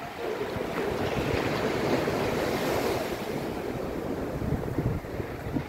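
Ocean surf breaking and washing up a flat sandy beach, swelling just after the start and easing off in the second half.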